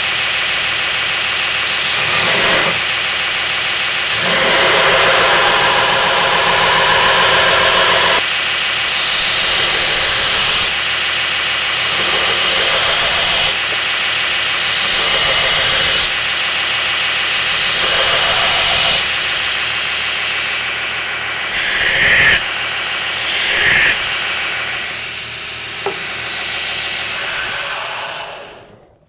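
Belt grinder running while the knife's rough steel tang is pressed against the narrow belt in a series of passes, each a louder grinding hiss lasting one to a few seconds. Near the end the grinder is switched off and runs down to a stop.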